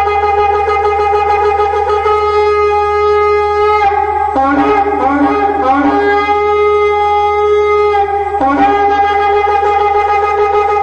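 Shofar blown in long held notes, with a stretch of rapid broken, wavering notes about four seconds in and a brief break before the long note resumes near the end.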